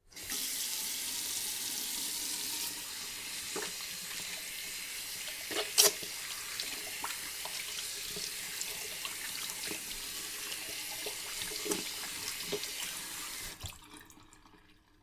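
Water running from a tap into a sink while hands are washed under it, a steady splashing hiss with small irregular splashes and one louder knock about six seconds in. The tap is shut off near the end and the sound dies away.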